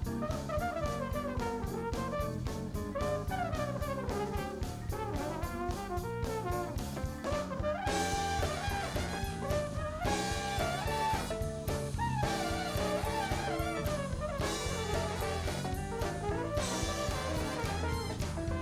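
A live blues-rock band playing an instrumental passage. A drum kit keeps the beat under a lead line with sliding, bending notes, and the full band comes in with held chords about eight seconds in.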